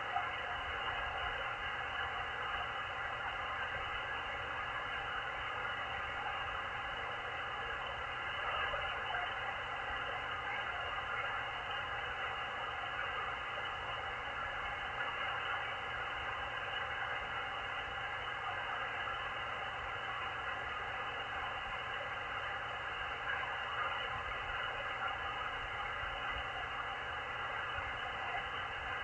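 Static and band noise from a Machilite DSP SDR shortwave receiver tuned to the 20-metre band: a steady hiss heard through the receiver's narrow audio filter, with a faint steady tone beneath it.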